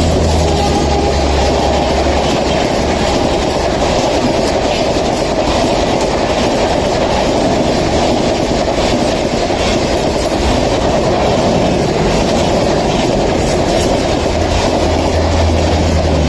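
An electric-hauled passenger express train running through a station at speed: a steady, loud rumble of the train passing, with wheels clattering over the rails.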